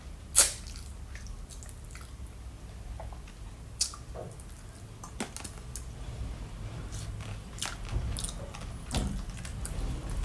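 Close-miked chewing and biting of fruit: wet crunches and mouth clicks at irregular intervals, the loudest bite about half a second in.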